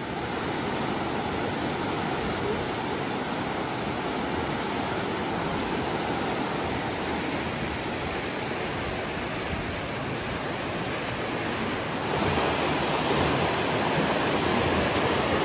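Steady rush of a large spring's water welling up from underground and running off as whitewater rapids. It gets louder about twelve seconds in.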